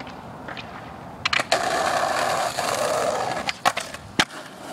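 Skateboard trick on a concrete ledge: a sharp pop about a second in, then about two seconds of steady scraping as the board grinds along the ledge, then clacks as it comes off and lands.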